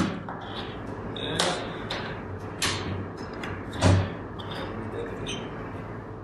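Desk handling noises as a LiPo battery charger and its cables are put down and connected: several knocks and clicks, the heaviest a dull thump about four seconds in.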